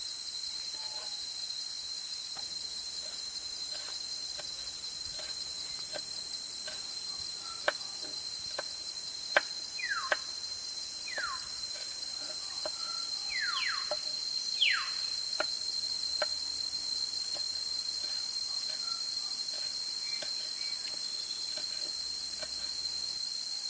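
Steady high-pitched insect drone of crickets or cicadas, with irregular sharp taps through the middle, the loudest a few seconds in. A few short falling whistled calls, likely birds, come about ten to fifteen seconds in.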